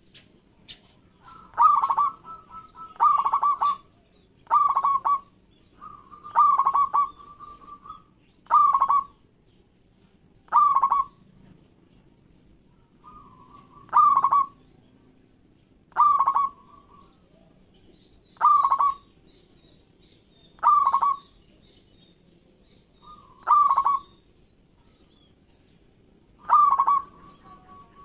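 Zebra dove (local perkutut) cooing loudly: its quick, stuttering multi-note call repeated about every two seconds, some calls with a short held note before or after.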